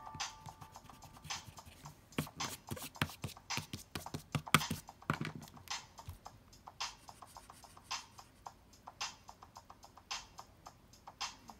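Irregular taps, clicks and light scratches of a pen on paper during drawing. They bunch most thickly in the first half, where the loudest knock falls, then thin out to scattered clicks.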